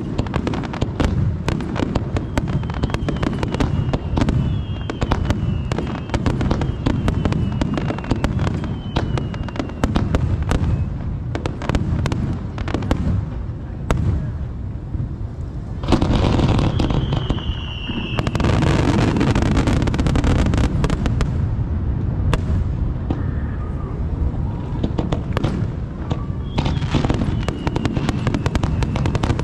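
Fireworks display finale: a dense barrage of shell bursts and crackling over a continuous low rumble, with whistles that fall in pitch several times. It grows loudest about sixteen seconds in and stays heavy for a few seconds after.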